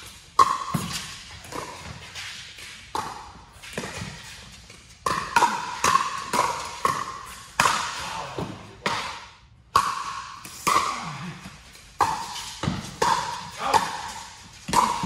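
Pickleball rally: paddles striking a hard plastic ball in a quick run of sharp, hollow pops, each ringing briefly in the hall, with a short lull about nine seconds in before the hitting resumes.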